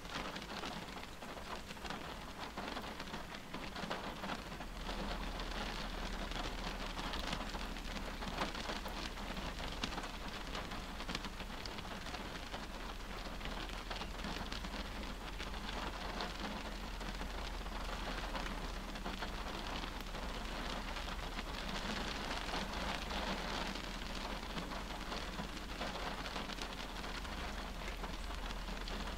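Steady rain falling on a stopped car's windshield and roof, heard from inside the cabin: an even hiss made of many small drop hits.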